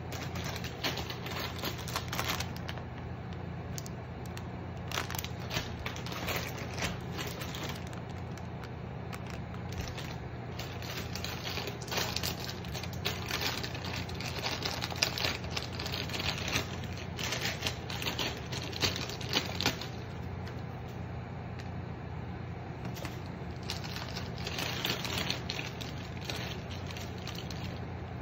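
Plastic packaging being crinkled and torn open in irregular bursts of crackling and clicks, over a steady low hum.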